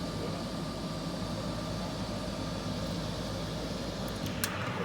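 Amana ACE14 industrial combination microwave-convection oven running with a steady hum and faint whine. A sharp click comes near the end, after which the low hum drops away.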